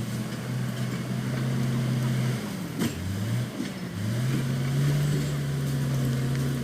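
Bulldozer's diesel engine running steadily; its speed sags about two and a half seconds in and climbs back a second or so later, as when the engine takes load. A single sharp clank comes near the middle.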